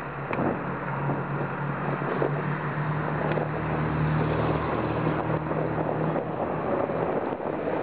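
Steady rushing wind and road noise on a key-ring camera's small microphone while moving along a street, with a low steady hum through most of it.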